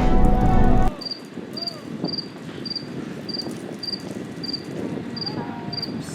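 Crickets chirping, an even high chirp repeating about every half second over a soft hiss. It comes in after music cuts off about a second in.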